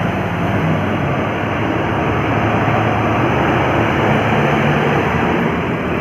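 Traffic noise from a heavy vehicle, a bus or truck, passing on the road: a steady engine drone with tyre and road noise, and no horn.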